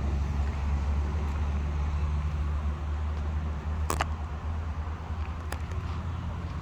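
Low steady engine rumble, with a sharp click about four seconds in and a fainter click about a second and a half later.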